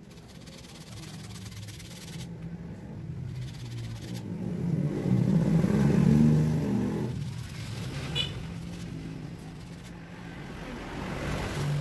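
A motor vehicle's engine passing by: a low hum that swells to its loudest about halfway through, fades, then rises a little again near the end.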